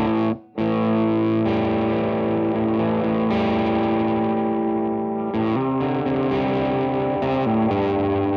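Yamaha Studio Lord Les Paul-copy electric guitar, bridge PAF-style humbucker, played through a Vox AC30 amp with overdrive: chords struck and left ringing. A brief stop about half a second in, then new chords about five and a half and seven and a half seconds in.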